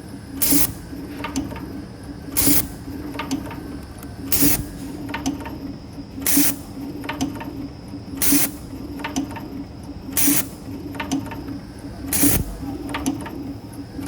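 CNC camless spring forming machine running in a steady cycle while forming 0.7 mm clip springs. A short, loud hissing burst comes about every two seconds, once per spring, with lighter mechanical clicks in between and a steady hum with a faint high whine underneath.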